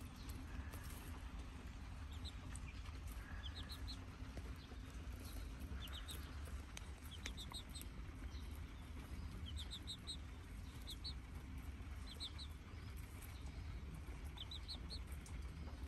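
Chicks peeping in quick runs of three or four high chirps, repeated every second or two, with faint light clicks of beaks pecking at a corn cob, over a low steady rumble.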